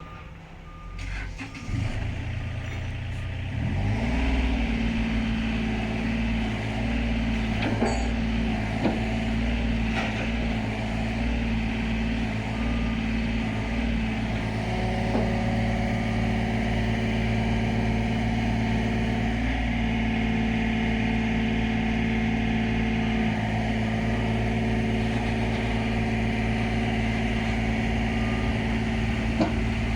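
The diesel engine of a Takeuchi TB230 mini excavator running. It picks up speed about four seconds in, then holds at a steady speed.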